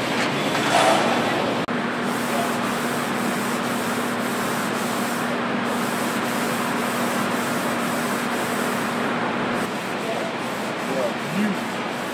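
Steady noise of a car factory floor, with a low steady hum that comes in about two seconds in and stops near ten seconds.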